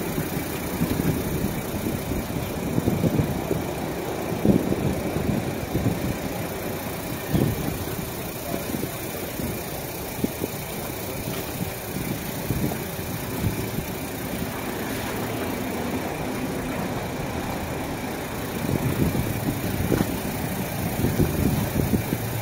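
Steady mechanical running noise at a self-service car wash bay, with uneven low rustle as a car is scrubbed with the foam brush.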